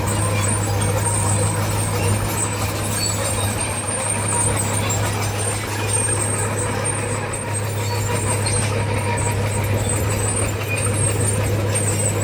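Diesel engine of heavy earthmoving machinery running steadily with a deep, even hum.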